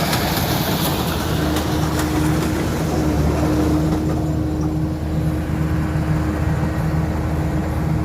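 Diesel engine of a combine harvester running steadily at a constant pitch, with a high mechanical hiss that eases off about halfway through.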